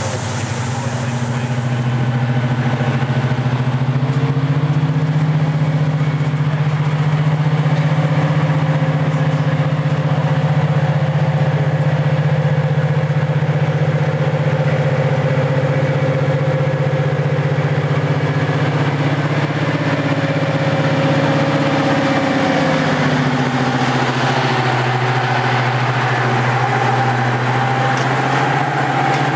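Class 55 Deltic diesel locomotive 55019, with its Napier Deltic two-stroke diesel engines, idling loudly at a standstill with a deep, steady engine note. About three-quarters of the way through, the engine note falls and then settles at a different pitch.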